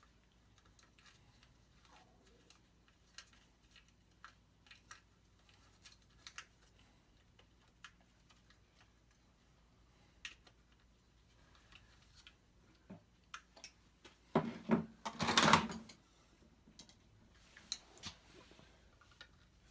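Scattered light clicks and taps of a clock movement and its nut being handled and fitted onto a wooden clock face, with a louder rustling scrape about fifteen seconds in.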